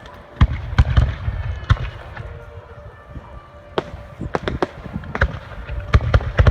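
Fireworks going off: volleys of sharp cracks and low booming bangs, one burst starting about half a second in and another from about four seconds in.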